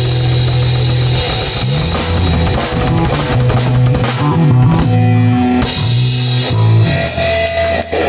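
Rock band playing live: drum kit, bass and electric guitar in the final bars of a song, thinning out near the end.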